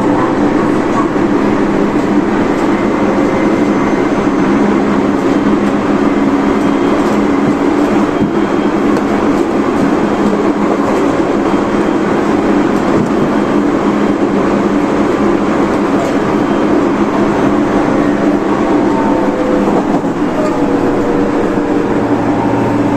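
Tobu 30000 series electric train running, heard from inside the car: a steady rolling rumble with a constant motor hum and faint whine from its Hitachi IGBT inverter drive.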